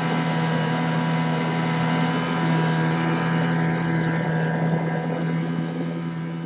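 Twin Tohatsu 30 hp outboard motors driving an aluminium boat at speed, a steady engine drone that eases off slightly in the last couple of seconds.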